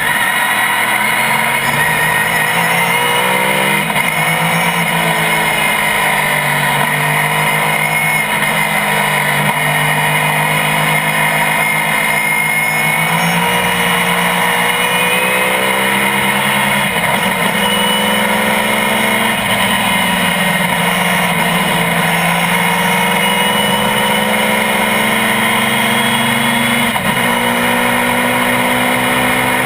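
GT-1 road-racing car's engine running hard at racing speed, loud and continuous, its pitch climbing slowly and dropping sharply again and again as it accelerates, shifts and slows.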